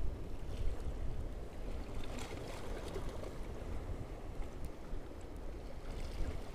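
Wind rumbling on the microphone and seawater washing against shore rocks, with a short knock right at the start and a few faint clicks.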